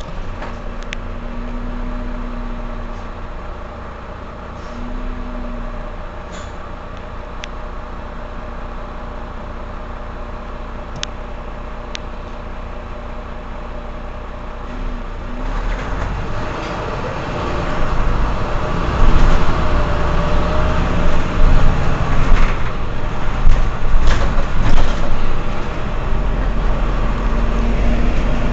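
Mercedes-Benz Citaro C2 Euro 6 city bus standing with its engine idling steadily. From about halfway a louder, rougher rush of engine and traffic noise builds up and stays loud to the end.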